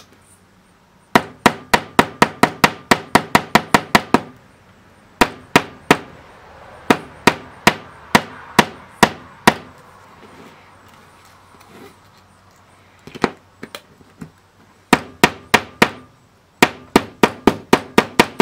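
Ball-peen hammer rapidly tapping small strips of spring steel flat on a workbench, in several runs of quick sharp strikes about five a second with short pauses between.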